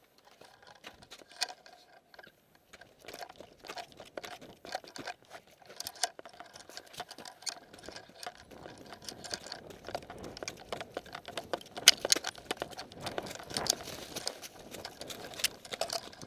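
Footsteps crunching through thin snow and dry leaves, an irregular run of short crunches and clicks that grows louder in the second half.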